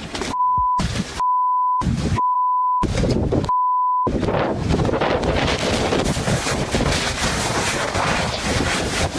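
Censor bleep, a steady beep tone cutting in and out four times over the first four seconds, followed by a steady rushing noise of wind and water.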